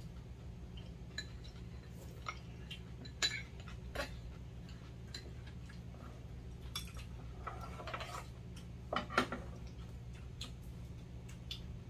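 Metal spoons and chopsticks clinking and scraping against bowls during a meal, in scattered light clicks with a few louder clusters, along with chewing.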